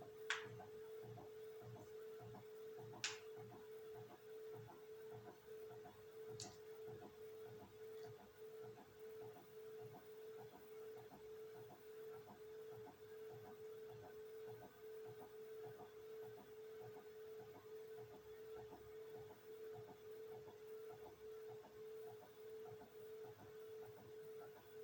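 Beko washing machine between phases, almost silent: a faint steady hum that pulses gently about twice a second, with a few soft clicks near the start.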